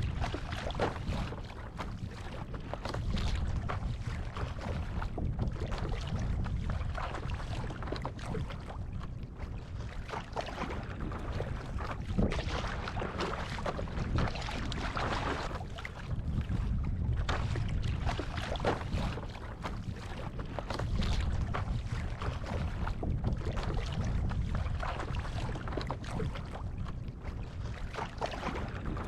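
Strong gusty wind buffeting the microphone, rising and easing every few seconds. Water sloshes and splashes against the paddleboard and paddle.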